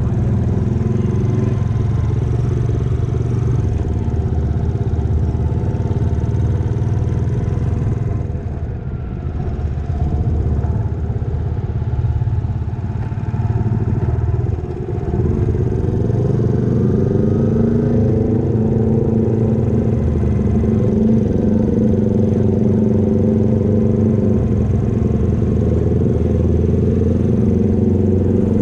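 Motorcycle engine running steadily. Its note drops briefly about eight seconds in and again around fifteen seconds in, then rises back up.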